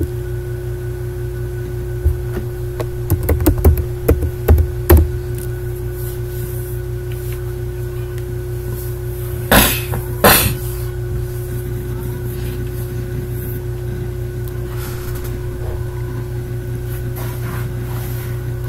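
Steady electrical hum with a few fixed tones, broken by a run of short clicks about two to five seconds in and two louder knocks about ten seconds in.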